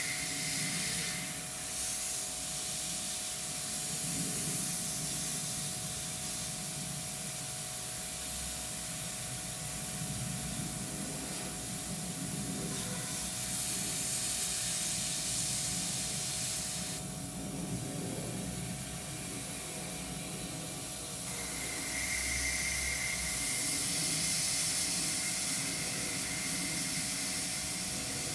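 Airbrush spraying paint: a continuous air hiss that eases off for a few seconds past the middle and then comes back, over a steady hum.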